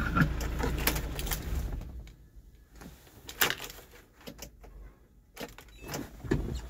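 Kia Bongo III cargo truck's engine idling, switched off with the ignition key about two seconds in, then a few faint clicks from the key and ignition switch.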